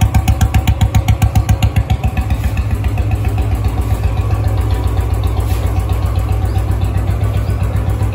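Royal Enfield Classic 350's single-cylinder engine idling through an aftermarket silencer: a steady, even thump at about eight beats a second. The beats are most distinct in the first two seconds, then blend into a smoother run.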